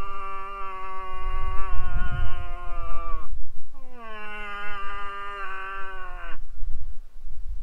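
Cow moose call: two long, loud, drawn-out moans. The second swoops up at its start, and each drops in pitch as it ends.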